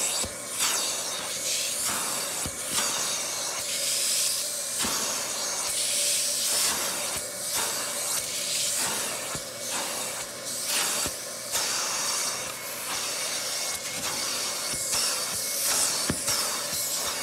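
Upholstery extraction wand hissing as it sprays and sucks water out of a sofa cushion's fabric in quick repeated strokes, over the steady whine of the extractor's vacuum motor, drawing out dirty water from dirt and dried milk.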